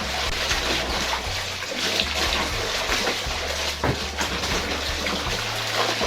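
Water sloshing and splashing in a washing machine tub, with a low hum that starts and stops several times.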